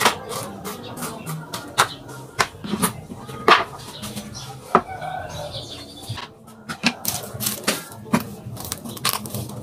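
Kitchen knife chopping onion on a wooden cutting board: a quick, irregular run of sharp taps, pausing briefly about two-thirds of the way through before more taps.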